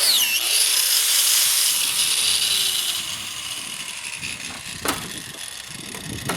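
Craftsman angle grinder with an abrasive cut-off wheel grinding into a rubber tire, a loud high-pitched rasp. About three seconds in it is switched off and winds down with a falling whine, and two sharp knocks follow near the end.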